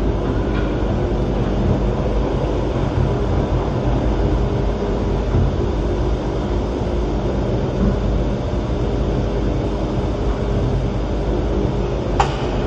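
St. Louis Gateway Arch tram capsule climbing its track inside the leg, heard from inside the small pod: a steady rumble and whir of machinery and rails. A single sharp click comes near the end.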